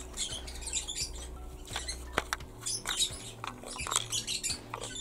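Small plastic toy pieces and a plastic Polly Pocket compact case being handled, with irregular light clicks, taps and scratchy rustling.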